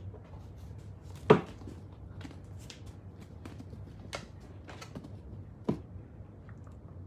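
Rabbits hopping about on foam floor mats and wooden hideout houses: scattered light clicks and knocks, with a loud thud just over a second in and a smaller one about two-thirds through, as rabbits jump onto and land on the wooden houses.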